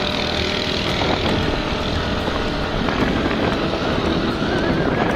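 Motorcycle engine running while riding along a road, with wind buffeting the microphone.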